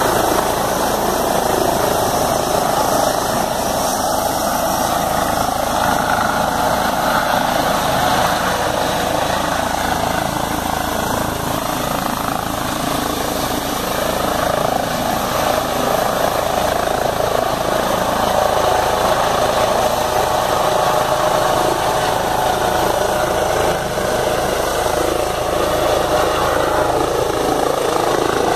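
Eurocopter EC135 air ambulance helicopter lifting off and climbing away: a loud, steady sound of its turbines and rotor.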